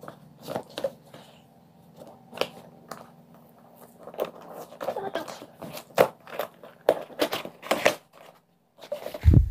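A small cardboard parcel box being torn open by hand: irregular crackling rips and crinkles of cardboard and packing, with a loud low thump near the end.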